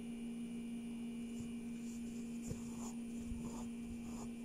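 Needle and embroidery thread drawn through cloth stretched in a hoop: a few faint, short scratches and rustles. They sit over a steady low hum.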